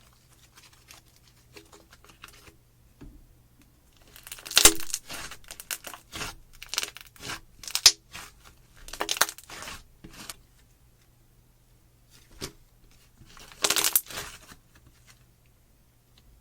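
Slime being squeezed, stretched and pressed by hand, crackling and popping in irregular bursts with quiet gaps between them.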